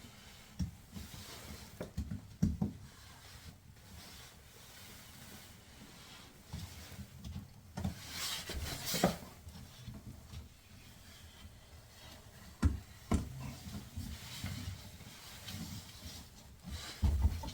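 Hands working a washer's rubber door boot into place: rubbing and scraping with scattered small knocks and clicks, a longer scraping stretch about halfway through.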